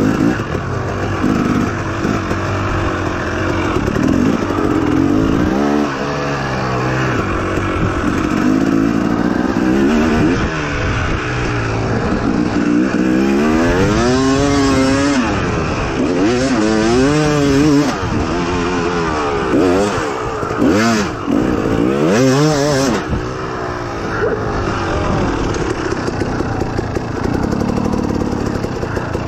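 Off-road motorbike engine being ridden hard, its pitch rising and falling over and over as the rider opens and closes the throttle and shifts through the gears.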